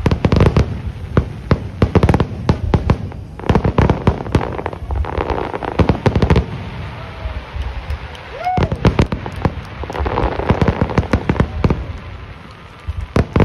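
Aerial fireworks shells going off in quick succession: many sharp bangs mixed with dense crackling, with a short lull near the end before more bangs.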